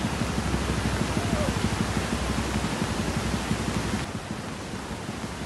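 Rushing muddy floodwater: a steady, dense hiss of flowing water. About four seconds in it becomes a little quieter and duller.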